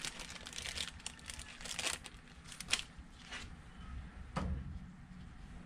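Rustling and crinkling with a few light clicks and taps, as gloved hands handle small plastic carburetor parts on a paper-covered workbench.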